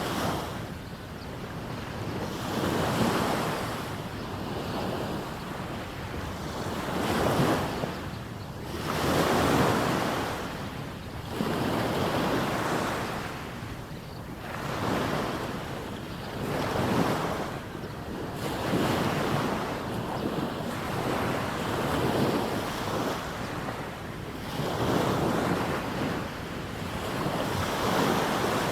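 Small waves breaking and washing up on a sandy beach, the surf swelling and fading every two to four seconds.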